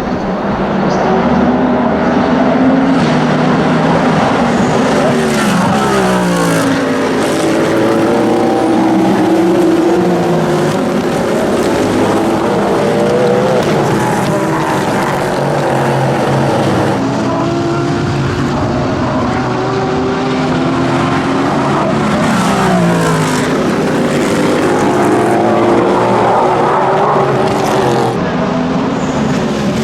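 Cadillac V-Series.R GTP prototype race cars at speed, the naturally aspirated V8 note rising and falling as the cars pass one after another, with gear changes.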